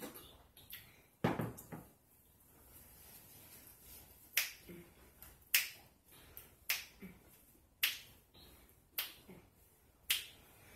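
Close-up, open-mouthed chewing of pizza: sharp, wet mouth smacks, roughly one a second in an even rhythm, with a fuller chewing sound about a second in.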